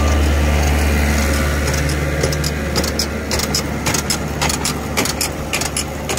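Tractor engine running steadily under load while it drives a tow-behind compost spreader, whose rear beaters are throwing compost out. From about two seconds in, many sharp clicks and rattles sound over the engine's low hum.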